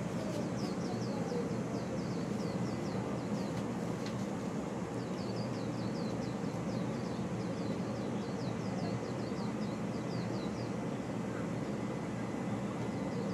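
Steady low background hum under runs of quick, high, falling chirps, several a second, from a small animal such as a bird or insect.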